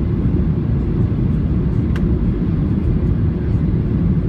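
Steady low rumble of a Boeing 737-800's CFM56-7B engines and airflow heard inside the cabin during the approach, with one faint click about two seconds in.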